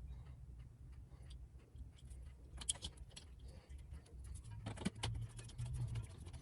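Scattered light metallic clicks and ticks of screws and a metal mounting plate being handled and fastened to a ceiling electrical box, with two sharper clicks partway through over a faint low hum.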